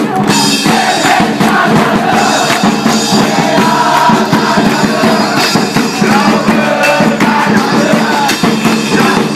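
Football supporters' bass drums and cymbal beating a steady rhythm while a crowd sings a chant together.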